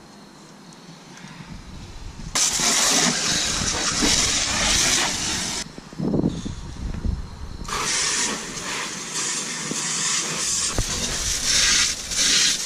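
Water jetting from a garden hose nozzle onto a plastic kayak hull, a steady hiss in two long runs with a short break between them.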